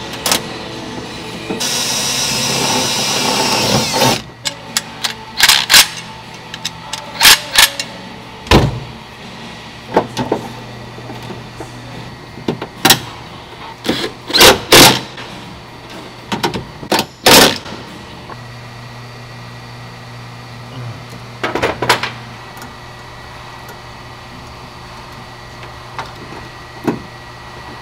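A cordless drill-driver runs steadily for about two seconds. Then come many sharp clicks and knocks as a metal relay bracket and its screws are handled and fitted into the steel door panel, with a few more near the end.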